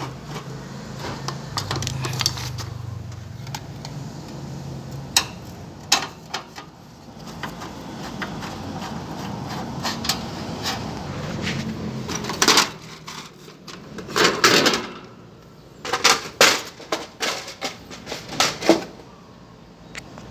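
Screwdriver backing out the screws of a window-type air conditioner's sheet-metal casing: scattered metallic clicks, clinks and a few louder knocks, coming thicker in the second half.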